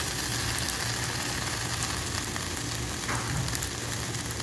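Coconut omelette frying in oil in a pan: a steady sizzle with fine crackles, over a low steady hum.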